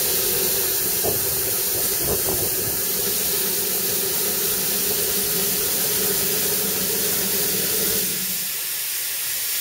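Steady hiss of escaping steam from a standing narrow-gauge Darjeeling Himalayan Railway steam locomotive, with a low steady hum underneath that drops away about eight seconds in.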